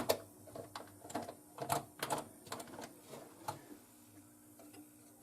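A run of irregular light clicks and taps, as of hands handling small parts, that stops about three and a half seconds in, over a faint steady low hum.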